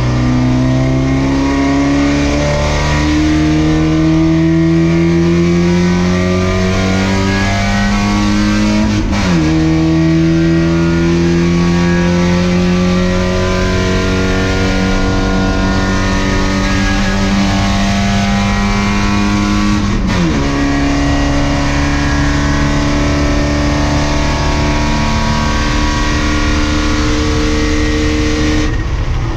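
Race car engine heard from inside the car, pulling hard down a long straight with its pitch climbing steadily. It upshifts with a sharp drop in pitch about 9 s in and again about 20 s in, then climbs once more. Near the end the driver lifts off and the engine note falls away.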